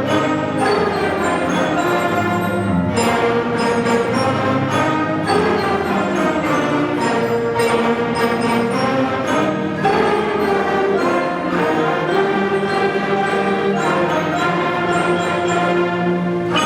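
A sixth-grade concert band playing, with sustained chords and frequent short accented notes at a steady level.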